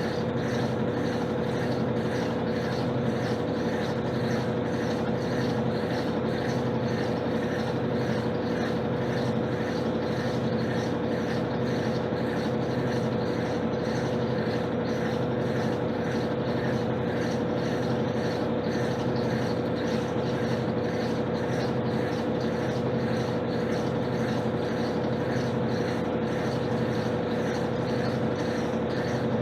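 Electrolux LTC10 washing machine spinning, its motor giving a steady, unchanging hum with a high tone running through it. This is typical of the final spin at the end of the wash cycle.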